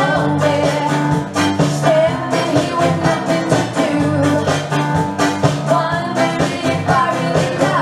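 A song with a singer over a steady beat, playing loudly without a break.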